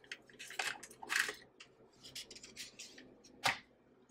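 Paper butter wrappers rustling and crinkling as sticks of butter are unwrapped and dropped into a stand mixer's steel bowl, in short bursts of handling noise, with one sharper knock near the end.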